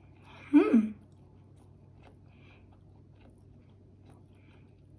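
Someone chewing a mouthful of sushi, with faint soft clicks of the jaw and mouth. About half a second in, one brief loud sound drops in pitch.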